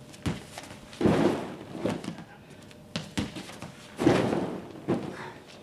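Thuds and scuffs of wrestlers' feet and bodies on padded mats during an inside-trip takedown, with a heavy thud about four seconds in as one is driven down onto a crash pad.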